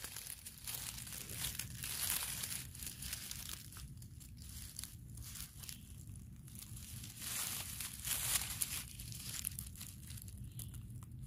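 Irregular rustling and crinkling of dry leaves, twigs and undergrowth underfoot while walking through forest.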